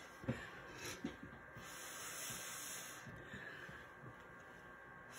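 Breath blown through a plastic straw onto wet acrylic paint, a soft airy hiss as the paint is pushed across the clay. A sharp tap comes just before, with a couple of small knocks.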